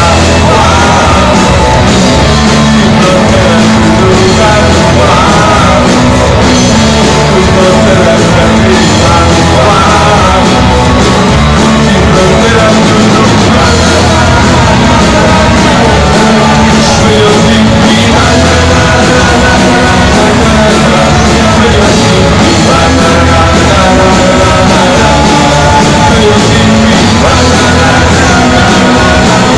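Rock band playing live and loud, with electric guitar, bass and keyboards under a male lead vocal.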